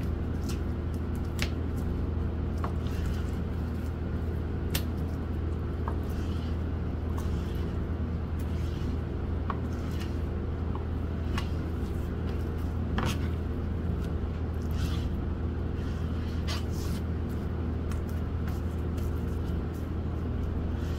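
A knife cutting raw chicken breast on a plastic cutting board: irregular sharp taps and clicks as the blade meets the board, some soft squishing of the meat, over a steady low hum.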